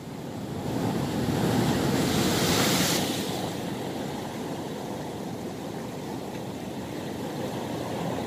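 Sea surf breaking over a rocky shore: a wave crashes and washes in, loudest for a couple of seconds about a second in, then a steady wash of churning water, with some wind on the microphone.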